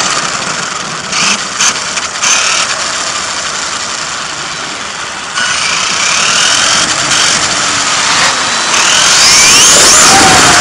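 Onboard sound of a radio-controlled car driving fast: a steady rushing noise with thin motor whines that rise and fall as it speeds up and slows. It gets louder about nine seconds in.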